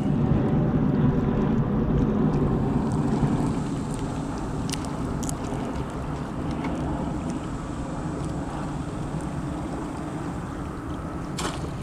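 Wind buffeting the microphone: a low rumble that eases somewhat after about three and a half seconds, with a few faint clicks.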